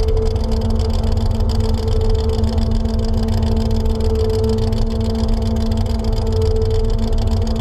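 Chevrolet S-10 pickup's engine running at a steady, unchanging speed as the truck rolls along, an even hum over a heavy low rumble.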